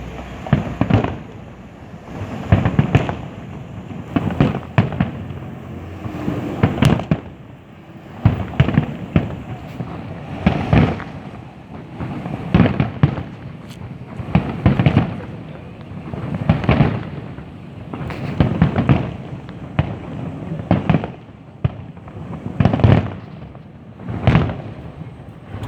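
Fireworks display: volleys of booming shell bursts arriving about every two seconds, each a cluster of several sharp bangs.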